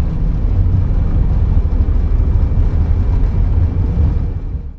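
Steady low rumble inside an Airbus A319 cockpit on the ground after an automatic landing, with faint steady hums above it. It fades out just before the end.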